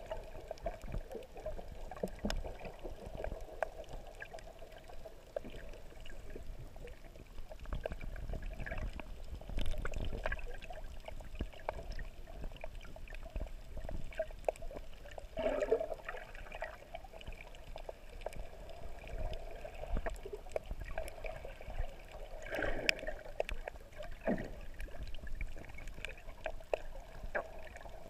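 Muffled water noise recorded underwater, with scattered faint clicks and two short, louder gurgles, about halfway and three quarters of the way through.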